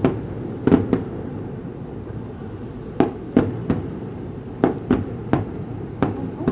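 Fireworks going off: about ten sharp bangs at irregular intervals, several in quick pairs, over a steady high-pitched hum.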